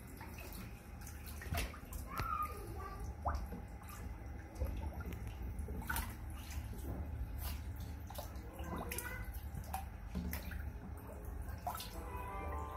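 Otter swimming and diving in a tub of water, splashing and sloshing it with irregular splashes.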